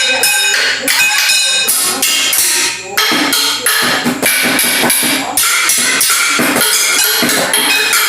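A drum kit playing a busy, loud beat, with cymbals and hi-hat ringing over the hits.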